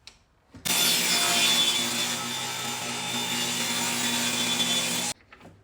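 Power saw cutting wood: a steady motor tone under the noise of the blade in the wood, starting abruptly about half a second in and cutting off suddenly near the end.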